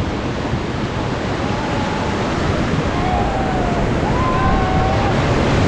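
Loud, steady rush of white water as a raft rides a river rapid, with faint voices calling out in the middle of it.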